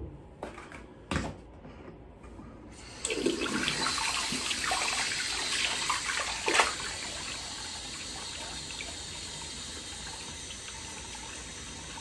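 A few light knocks, then about three seconds in a bathroom tap comes on and runs into the basin, splashing as hair is wetted under it. The splashing eases after a few seconds while the water keeps running steadily.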